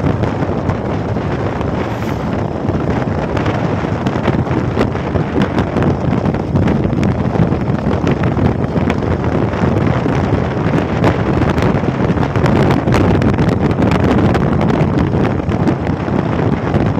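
Wind rushing over the microphone of a moving motorcycle, with the engine and road noise underneath, steady and loud with scattered small clicks.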